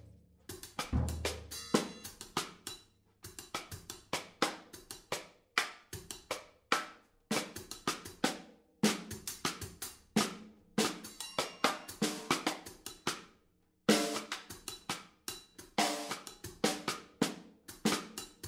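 Drum music: a busy run of sharp drum and cymbal hits, with a few brief breaks in the beat.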